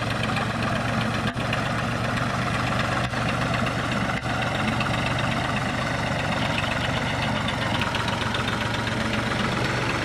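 Diesel farm tractor engine running steadily while pulling a loaded trailer.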